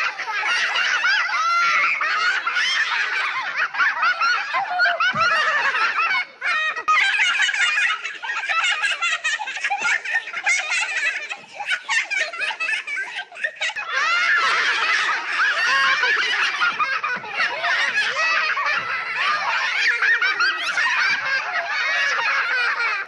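Many children laughing and giggling together, high-pitched and overlapping, in a continuous stream with a few brief lulls.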